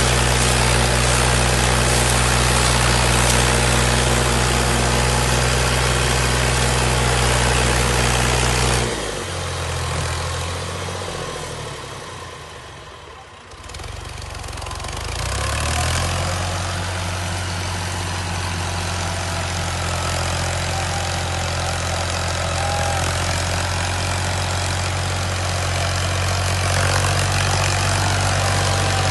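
Heavy farm-machine engine running steadily. About nine seconds in the sound drops away abruptly, fades to its quietest a few seconds later, then comes back and runs steadily again.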